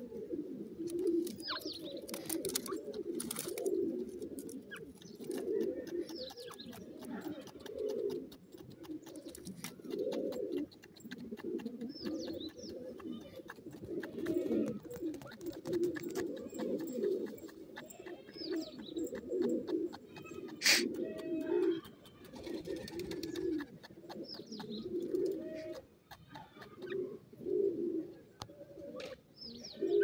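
Low bird cooing, wavering in pitch and repeating without pause, with short high chirps now and then and scattered scratchy clicks.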